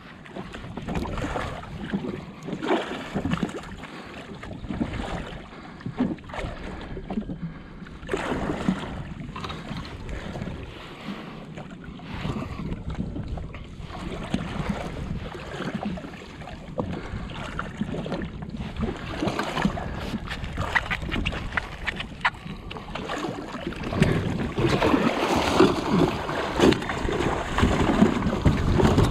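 Water lapping and slapping against a jet ski's hull, with wind buffeting the microphone. About five seconds before the end it grows louder and choppier as a hooked cobia thrashes and splashes at the surface beside the ski.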